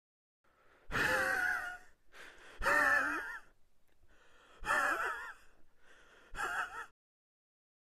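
A man's voice making four high, wavering, breathy wordless cries, each under a second long, with short pauses between them.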